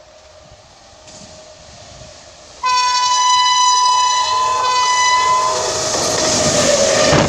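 Indian Railways WAP-7 electric locomotive sounding its horn in one long blast of about three seconds while approaching at speed. About six seconds in, the loud rush and rumble of the locomotive and coaches passing close by takes over.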